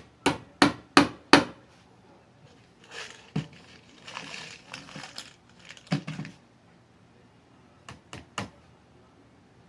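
Hammer tapping on wood: four sharp knocks at about three a second, then rustling and handling noise with a few clicks, then three lighter taps near the end.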